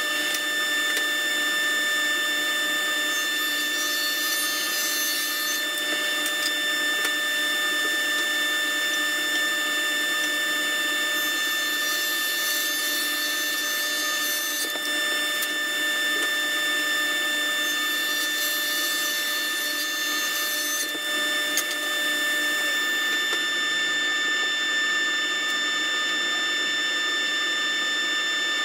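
Table saw running with a steady motor whine, its blade cutting through wooden boards in several passes, the hiss of the cut swelling with each pass.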